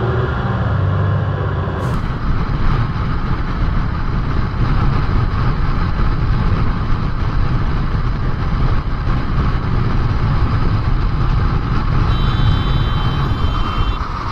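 Kawasaki Z900 motorcycle riding at highway speed: a steady rush of wind on the camera's microphone, with engine and road noise underneath. The sound changes abruptly about two seconds in.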